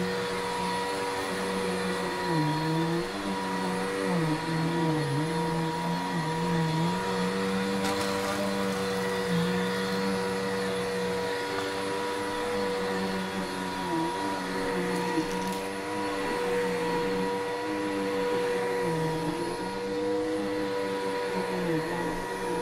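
Upright vacuum cleaner running on carpet: a steady whine, with a lower hum that dips in pitch now and then.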